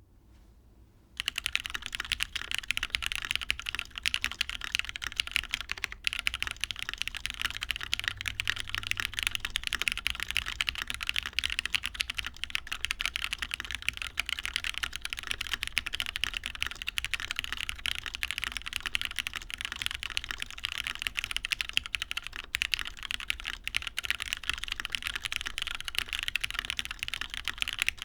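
Fast continuous typing on a custom mechanical keyboard with lubed, filmed linear MX Black switches in an aluminium top-mount plate, under GMK doubleshot keycaps. The keystrokes begin about a second in.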